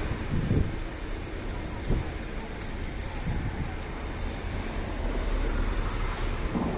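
City street traffic: cars and vans running by, with wind rumbling on the microphone. A vehicle passes a little louder about five seconds in.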